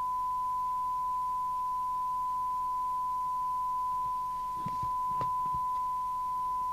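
Steady 1 kHz test tone from a Maxcom Apollo 16E FM CB radio receiving a modulated test signal from a signal generator, with a few faint clicks about two-thirds of the way through.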